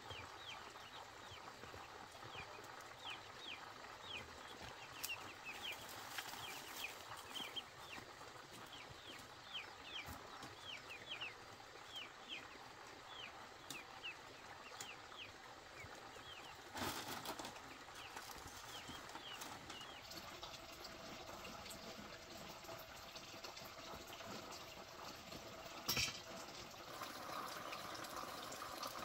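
A brood of ducklings peeping: many short falling peeps, several a second, thinning out after about twenty seconds. A few knocks from woven bamboo panels being handled, the loudest about 26 seconds in.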